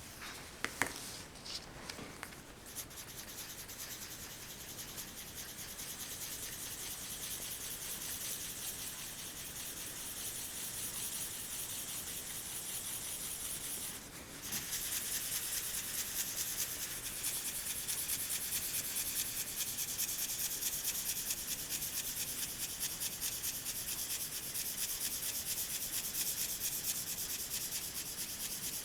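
Pencil shading on paper: quick back-and-forth strokes make a steady scratching, after a few light taps near the start. The strokes stop briefly about halfway, then resume louder.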